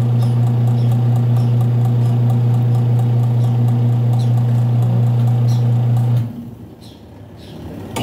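Washing machine wash motor running with a steady electric hum while the pulsator stays still: the motor pulley slips on the drive belt because the pulsator drive is tight. The hum cuts off about six seconds in and starts again right at the end.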